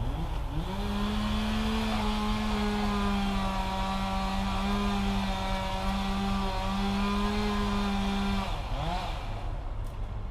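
Two-stroke chainsaw revved up to full throttle and held there for about eight seconds, with slight dips in pitch, then let back down to idle.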